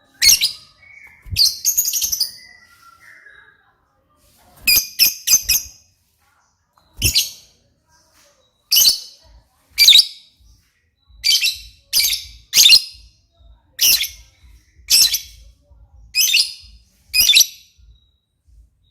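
Lovebird calling in short, high-pitched chirps, some in quick runs of three or four and roughly one a second over the second half.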